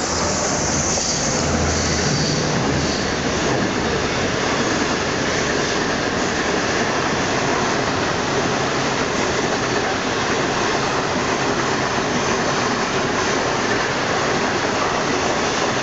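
SS8 electric locomotive and its train of 25T passenger coaches passing: a low hum from the locomotive in the first few seconds, then the steady rush and rumble of the coaches' wheels running on the rails.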